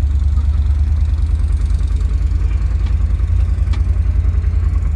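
1978 Pontiac Firebird's engine running steadily with a deep, even low throb as the car is driven.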